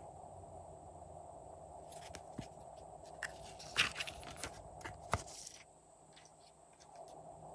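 Eyeshadow palette being handled and opened: a run of small clicks, taps and rustles of the case between about two and six seconds in, the loudest click near the middle, over a faint steady hum.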